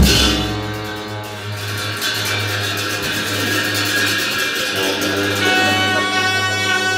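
Tibetan Buddhist cham ritual music: a cymbal clash at the start rings away over a steady, low drone of long horns, with higher held horn tones growing stronger near the end.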